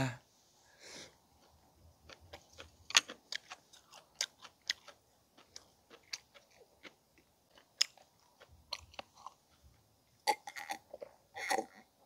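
A man chewing a mouthful of boiled pork wrapped in fresh napa-cabbage kimchi: scattered short crunches and clicks.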